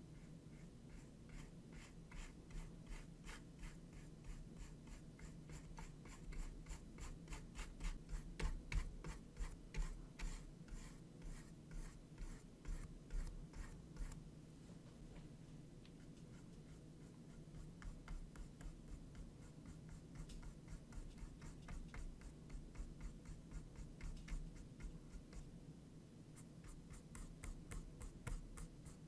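Flat paintbrush brushing back and forth across a small textured canvas in quick, short scratchy strokes, with a brief lull about halfway through.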